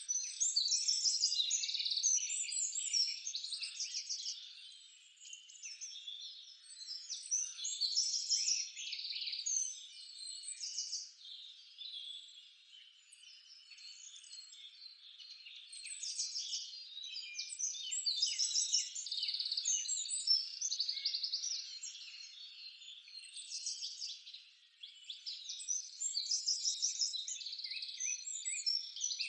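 A dense chorus of high-pitched chirps and rapid trills from calling animals, swelling and fading in waves every few seconds.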